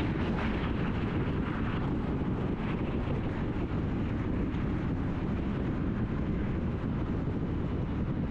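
Steady wind rush and road rumble from a camera mounted on the hood of a Dodge Hellcat cruising at a constant speed, with wind hitting the microphone.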